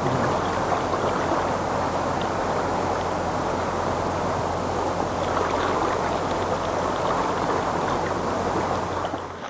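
Flowing river water, a steady rushing noise that cuts off suddenly at the end.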